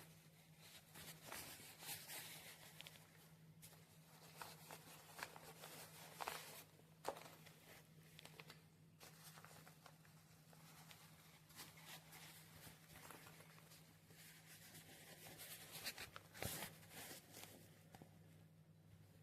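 Faint rustling and scattered clicks, like something being handled, over a steady low hum.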